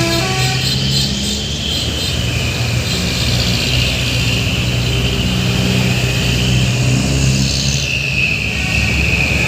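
Large truck engine running with a steady low drone. In the first half-second the last notes of a multi-tone telolet horn tune die away.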